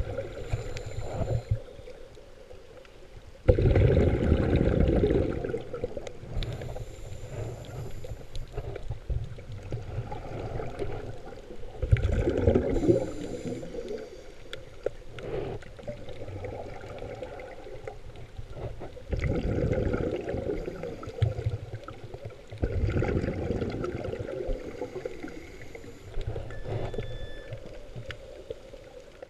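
Scuba regulator breathing heard underwater, with the bubbling rumble of exhaled air. There are four louder bursts of bubbles, each a second or two long, spread several seconds apart.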